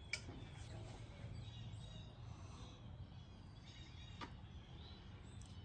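Quiet background: a faint low hum with faint bird chirps, and a couple of soft clicks as shrimp are set onto the tortilla.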